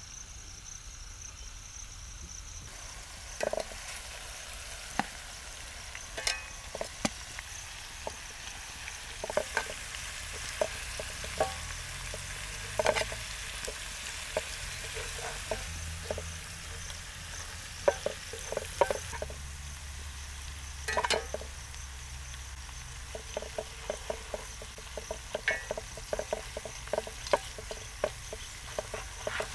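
Chicken pieces sizzling in masala in a cast-iron skillet, while steel tongs and a spatula click and scrape against the pan many times, irregularly, as the pieces are turned. The clicks come thicker near the end.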